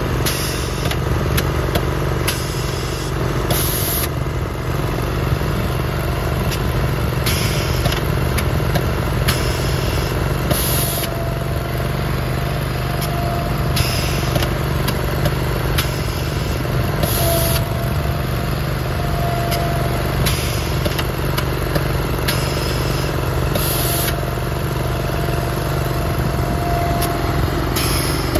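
Engine of an AIR2G2 336 turf aerator running steadily, with a short hiss of compressed air every few seconds as its probes fire air into the turf.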